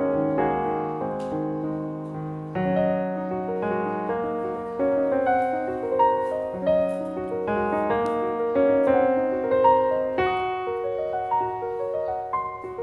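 Background piano music: a gentle melody of single notes and chords.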